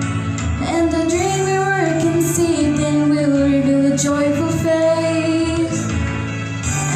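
A girl singing long, held notes without clear words over a backing track, her voice gliding between pitches.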